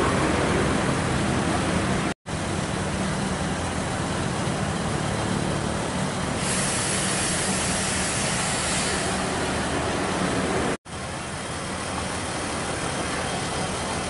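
Steady road traffic with a vehicle engine running nearby. A high hiss comes in for a couple of seconds midway, and the sound cuts out completely for a moment twice.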